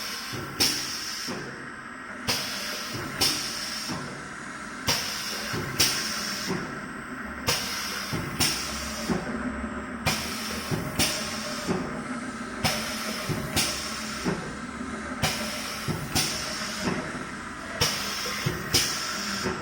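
Paper tube edge-curling machine running its automatic cycle: pneumatic cylinders fire with sharp clunks and bursts of air hiss, in pairs about every two and a half seconds, over a steady machine hum.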